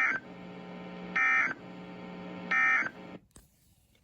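Emergency Alert System end-of-message signal: three short bursts of warbling digital data tones about 1.3 s apart, marking the end of the warning. Under them runs a steady low hum from the broadcast, which cuts off about three seconds in.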